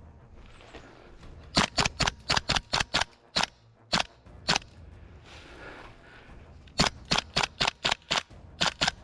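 Gas blowback airsoft replica firing rapid shots: a quick string of about eight sharp cracks, a few single shots, then another quick string of about seven and two more near the end.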